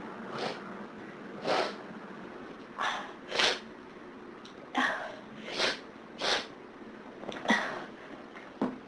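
A person sneezing over and over in a hay fever fit, a quick run of about nine short, sharp bursts.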